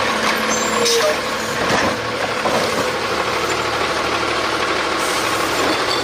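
Automated side-loader garbage truck running as its side arm lifts a trash cart: engine and hydraulics working, a loud, steady noise.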